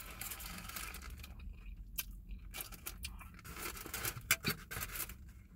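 Paper and foil wrapping around a falafel pita rustling and crinkling as it is handled, with irregular short crackles.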